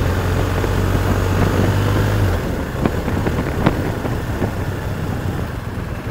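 BMW motorcycle riding at low speed with engine and wind noise, slowing down; the low hum and rushing noise drop a little over two seconds in. Two short clicks come about a second apart.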